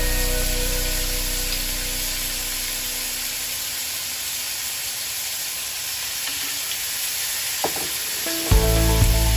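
Kingfish steaks sizzling in hot fat in a grill pan, a steady frying hiss.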